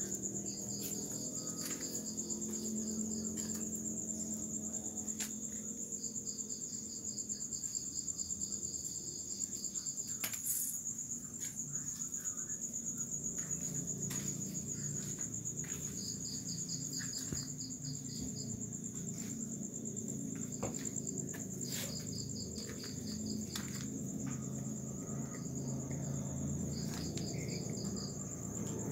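Night insects calling: one keeps up a continuous high, pulsing trill while another chirps in rapid pulsed runs of a second or two every few seconds, over a low background rumble with a few faint clicks.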